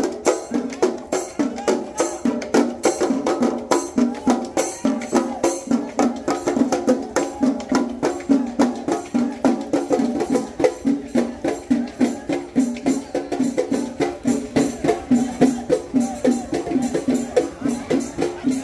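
Chenda melam: a group of chenda drums played rapidly with sticks, with a steady pulse of louder beats about three times a second.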